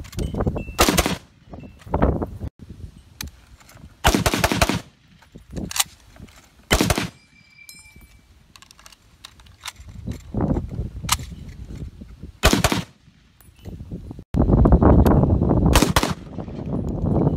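M1 Garand rifle in .30-06 fired in a string of single shots, each a sharp crack, spaced irregularly from about one to a few seconds apart. A thin ringing metallic ping follows one shot about halfway through, the sound of the Garand's empty en-bloc clip ejecting. Near the end, a loud rushing noise lasts a second or two between shots.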